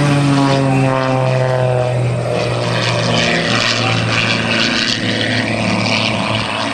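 Super Chipmunk aerobatic plane's piston engine and propeller on a low pass: the engine note drops in pitch as it goes by, then settles into a steadier drone as the plane climbs away.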